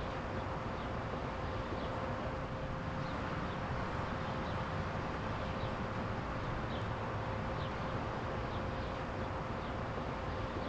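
Outdoor ambience: a steady background hiss with a constant low hum, and faint short high chirps every second or so.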